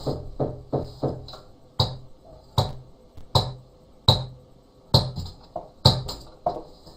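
Repeated knocking on a hard surface: quick raps about three a second, then louder, slower knocks roughly one a second.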